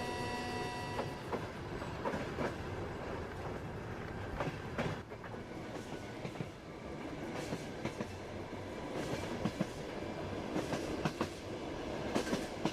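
Passenger train running, a steady rumble with the clickety-clack of wheels over rail joints. A train horn note stops about a second in.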